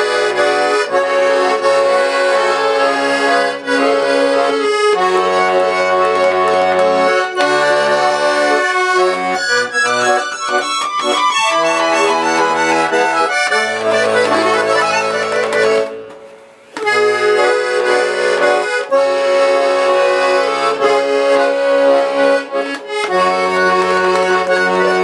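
Chaika accordion playing a traditional melody over bass chords, with a short break about sixteen seconds in; the instrument has just been retuned, its reeds put back in their right places.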